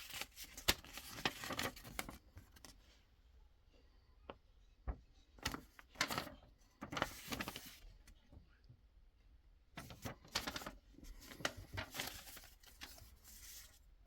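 Packaging being handled while unboxing a kit: irregular rustling of paper and plastic with scattered light clicks and knocks, the longest rustles about six seconds in and again around ten to thirteen seconds.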